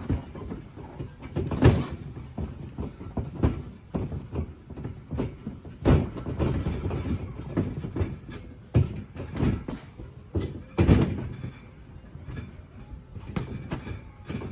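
Boxing sparring: irregular thuds and slaps of gloved punches and of feet on the ring floor, some much louder than others.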